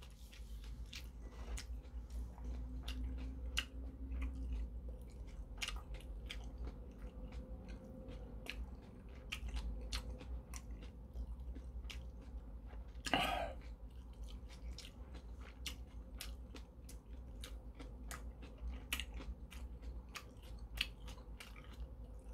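Close-miked chewing of a mouthful of steamed dumplings, with many small wet clicks and smacks of the mouth. A louder, longer mouth noise comes about 13 seconds in.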